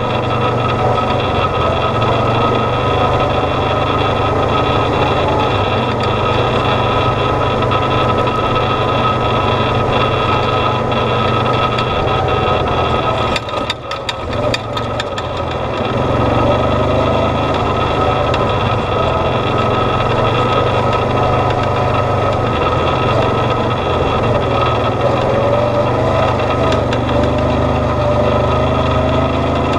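Off-road vehicle's engine running steadily as it drives along a dirt trail, easing off briefly about halfway through and then picking up again.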